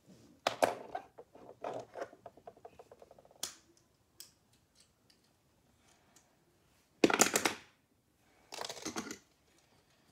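Clicks and rattles of small hard objects being handled, ending in a quick run of ticks that come ever closer together, like a small piece rattling to rest. Later come two short scraping or rustling noises about a second apart.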